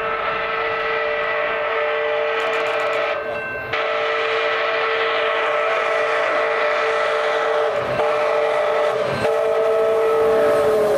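Chime whistle of CP 2816, a 4-6-4 H1b Hudson steam locomotive, sounding one long, steady blast as the train passes. The upper notes drop out briefly about three seconds in, and the pitch sags slightly near the end as the locomotive goes by.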